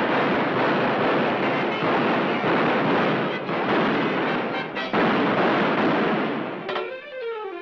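Cartoon gunfire: a dense, continuous barrage of shots with music underneath. Near the end the shooting breaks off and a tone slides down and back up.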